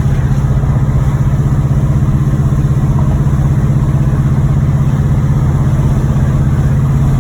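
1986 Monte Carlo SS V8 engine running steadily with a fast, even pulsing hum while the car is driven; the engine has a knocking connecting rod.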